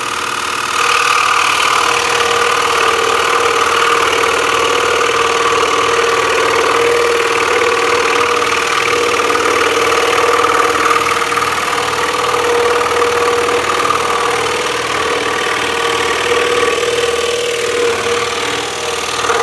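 Axminster Trade scroll saw running, its reciprocating blade cutting through a thick wooden block fed by hand. It is a steady, even machine sound that gets louder about a second in as the cut gets under way.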